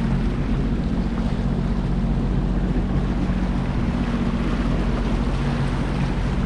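2021 Sea-Doo GTX 170 personal watercraft running at a steady low speed, its engine a constant low drone, with water splashing along the hull and wind buffeting the microphone.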